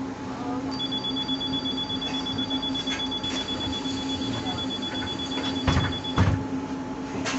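Inside a moving trolleybus: a steady low hum from the vehicle, overlaid by a high, two-tone electronic beep held for about five seconds. Two dull knocks sound as the beep ends.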